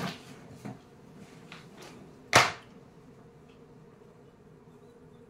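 A soft bump as someone settles onto a plastic chair, then one sharp smack about two and a half seconds in, the loudest sound here. After it there is only quiet room tone with a faint hum.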